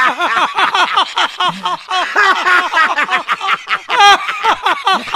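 Two men laughing loudly and hysterically, one laugh after another with the pitch jumping up and down.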